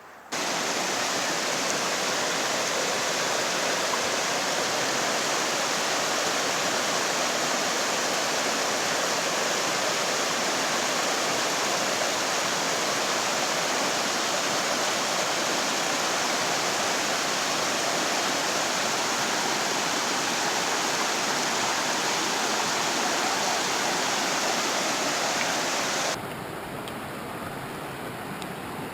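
Rushing water of a mountain creek, a steady even rush. About 26 seconds in it cuts off suddenly to a quieter, steady hiss.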